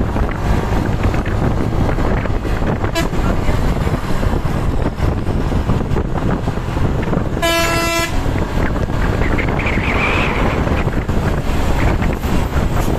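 Steady road traffic noise, with a single short, steady vehicle horn toot about seven and a half seconds in.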